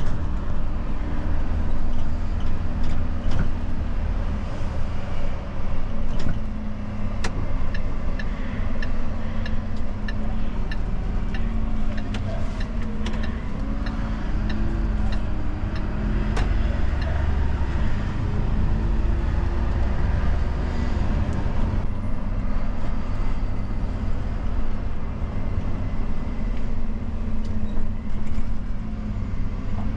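Dennis Eagle Elite refuse truck's diesel engine and cab noise heard from inside the cab while driving: a steady low rumble whose engine note rises and falls around the middle. There is a run of light, regular ticks partway through.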